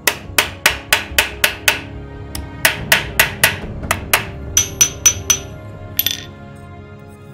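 Small hammer tapping a steel hand punch into thin brass sheet, chasing rune lines: quick sharp taps about four a second in three runs with short pauses. The last few taps ring high and clear against a steel block. Background music plays underneath.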